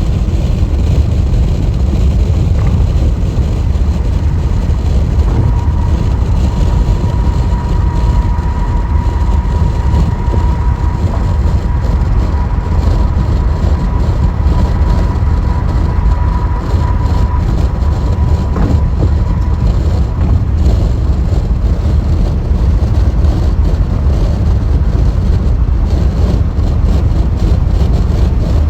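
Car cruising at freeway speed: loud steady tyre and road noise, with a steady high whine that comes in about five seconds in and fades out about fifteen seconds later.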